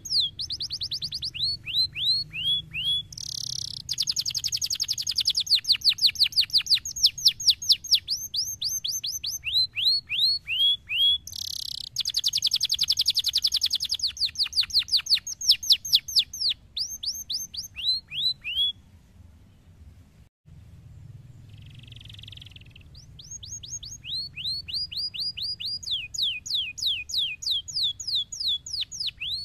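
Domestic canary singing: rolls of quick, falling whistled notes repeated several times a second, packed into faster runs in the middle. The song breaks off for a few seconds, then resumes with the same rolls.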